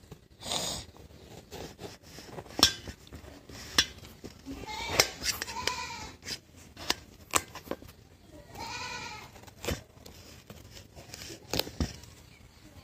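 A knife cutting through a raw gourd in a steel plate, with a series of sharp knocks as the blade cracks through the rind and strikes the plate. A goat bleats twice in the background, about five and nine seconds in.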